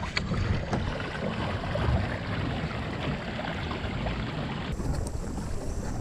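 Wind buffeting an action-camera microphone over the wash of water along a pedalled kayak's hull, a steady rumbling hiss with a few faint clicks. About five seconds in the sound turns duller, with less hiss.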